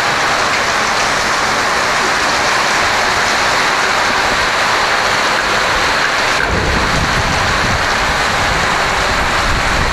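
Heavy rain pouring down on a road and trees, a steady loud hiss. About six and a half seconds in, a deep low rumble joins it and carries on.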